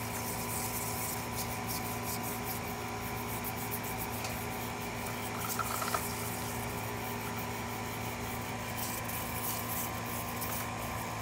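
Hand scrubbing carbon deposits out of a combustion chamber of a 5.7 Hemi aluminium cylinder head: a steady scratchy rubbing, busiest in the first few seconds and again near the end, over a steady background hum.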